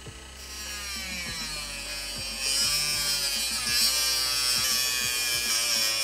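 Dremel-type rotary tool with a thin cut-off wheel whining, its pitch sagging and recovering as it is pressed into the toggle switch's metal legs on the circuit board. The grinding hiss of the cut gets much louder about two and a half seconds in.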